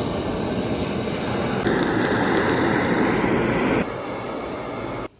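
Handheld butane blowtorch flame running steadily as it singes the hair off a raw pork hock, louder for a couple of seconds in the middle, then cutting off suddenly just before the end.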